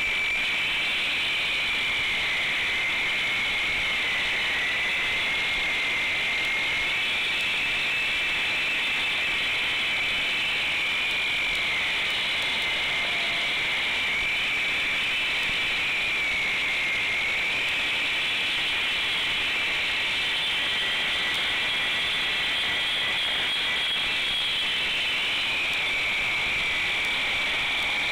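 Handheld concrete saw cutting into a concrete slab: the motor and blade run continuously with a high whine that sags in pitch a few times as the blade loads in the cut.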